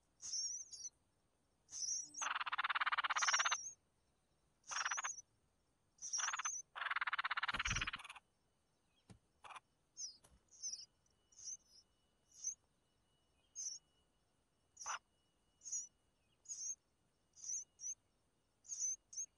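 Songbird nestlings begging in the nest: short high chirps about once a second throughout, with two longer raspy bursts of begging, about two and about six and a half seconds in, while the parent feeds them.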